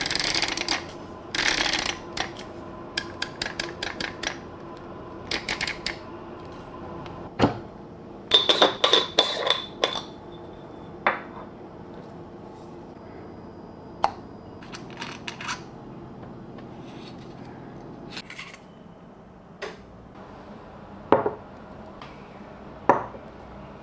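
Metal parts of a hand coffee grinder clicking and clinking as they are handled and set down, with a quick cluster of clinks about eight seconds in, one ringing on briefly.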